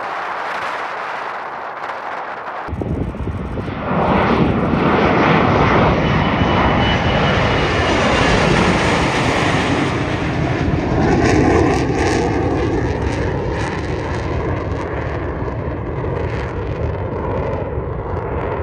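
Twin PD-8 turbofan engines of a Sukhoi Superjet 100 (SJ-100) running at takeoff thrust as the jet lifts off and climbs away overhead. The steady jet noise steps up abruptly with a deep rumble about three seconds in and grows louder about a second later, with a thin high whine for a couple of seconds after that.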